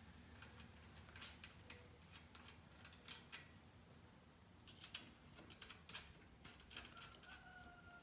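Faint, irregular clicks and taps of a hard plastic number plate and the metal front end of a pit bike being handled while the plate is fitted, over a low steady hum.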